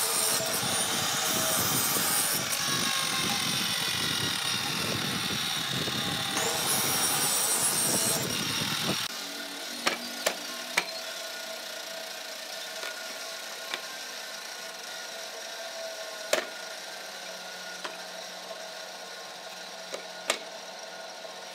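Hitachi miter saw running and cutting through a wooden strip. It stops abruptly about nine seconds in. After that come a few sharp wooden knocks as pieces of wood are set down on a workbench.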